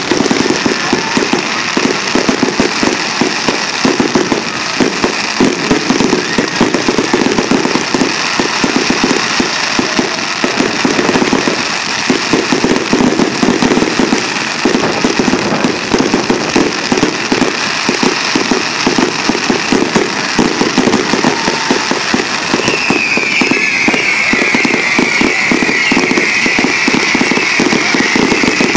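Fireworks display finale: a dense, unbroken barrage of rapid bangs and crackling from many shells and crackling stars going off together. From about three-quarters of the way through, a high, slightly falling whistling tone runs over the crackle.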